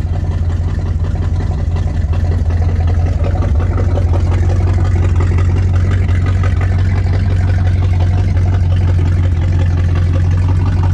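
A 1979 Chevrolet Monte Carlo's engine idling steadily on its own just after a cold start.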